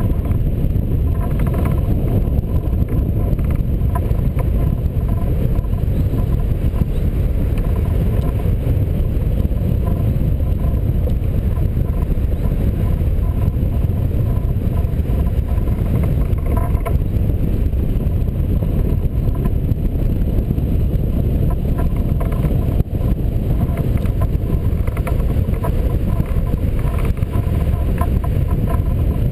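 Loud, steady wind noise from the rushing airflow on the microphone of a camera mounted on a hang glider's wing in flight, an even low rush with no engine and no break.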